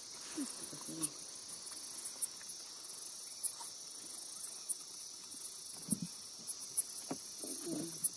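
Steady high-pitched drone of a night insect chorus, crickets and the like, from the surrounding jungle, broken by a few short knocks.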